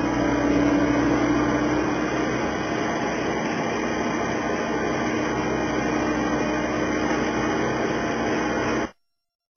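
Skid steer loader engine running steadily under a haze of machine noise, with a low hum; it cuts off suddenly near the end.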